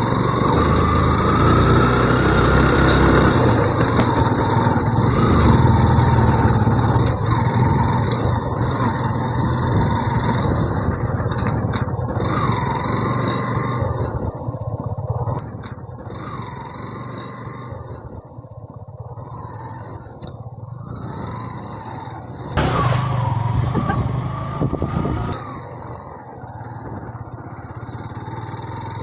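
Yamaha FZ V2 motorcycle's single-cylinder engine running on a rough mountain track, its pitch rising and falling with the throttle and growing quieter about halfway through. About 23 seconds in, a sudden loud rush of noise lasts about three seconds.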